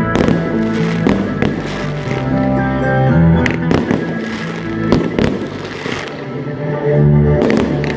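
Fireworks bursting, with several sharp bangs scattered throughout, over the music of a pyromusical display.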